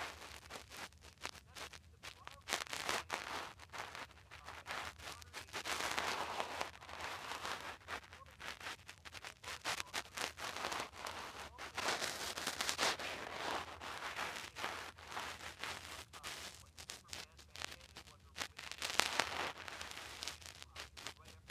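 A narrating voice played through a phone's small speaker, heard choppy and crackly with many small clicks.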